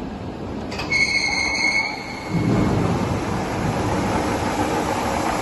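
Induma vertical milling machine being switched to its top spindle speed. There is a click about a second in and a brief high whine, then the spindle runs up and keeps running steadily at 1500 RPM.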